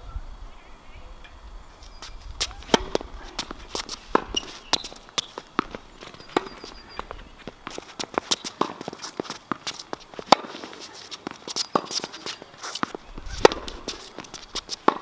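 Tennis rally: sharp pops of racket strings striking the ball, ball bounces on the hard court, and quick footsteps of the players.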